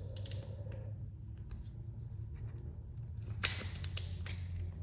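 Screwdriver handling on a stubborn outlet screw: small scrapes and clicks, with a few sharper clicks about three and a half to four seconds in, over a steady low hum.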